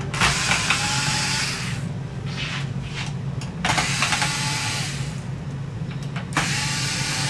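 Cordless electric screwdriver running in three bursts of about a second and a half each, driving screws out of the TV's metal back frame.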